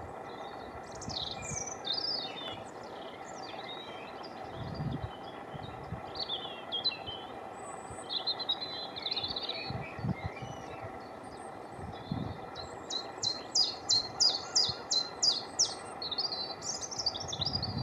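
Common chiffchaff singing its repeated two-note 'chiff-chaff' song, a run of about ten evenly spaced high notes over about three seconds in the second half. Other small birds warble and trill in the first half, over a steady low hum.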